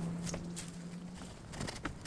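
A few sharp, irregular clicks like footsteps, over a steady low hum that stops about a second in.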